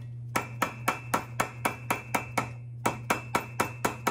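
A yellow plastic mallet tapping repeatedly on the air-cooled aluminium cylinder head and block of a Kawasaki KZ1000 (Z1-R) engine, about four light blows a second with a short break in the middle. The blows are breaking the stuck top end loose from the crankcase.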